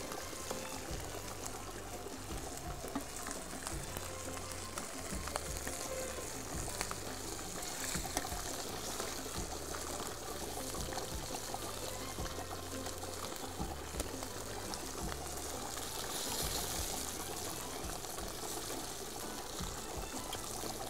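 Tomato-and-fish broth bubbling in a large metal stockpot, with liquid sloshing and dripping as pieces of hamour are lifted out with a spoon and tongs, and small clinks of the utensils against the pot and plate. Soft background music plays underneath.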